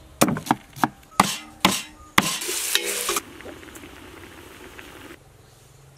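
A knife chopping on a wooden cutting board, about six sharp strikes in the first two seconds. Then food sizzles loudly in hot oil in a wok, settling into a quieter sizzle and bubble that stops abruptly about five seconds in.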